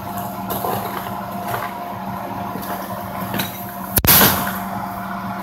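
Traditions Ironside model cannon firing a black-powder charge with a paper wad and no ball: a single short bang about four seconds in, not nearly as loud as expected.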